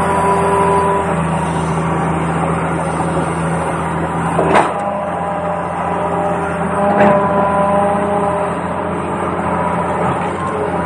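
Small electric motors of a toy remote-control excavator whining steadily, their pitch shifting now and then, with two sharp clicks about four and a half and seven seconds in.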